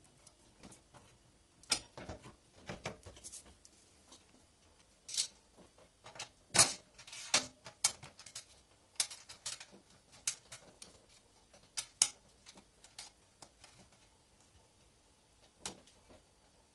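Irregular small metallic clicks, taps and short rattles as a fatbike's rear derailleur is handled and adjusted by hand, with a brief clatter about halfway through.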